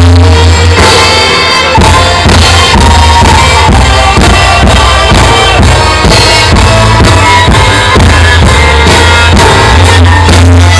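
Loud instrumental music with a steady drum beat and heavy bass.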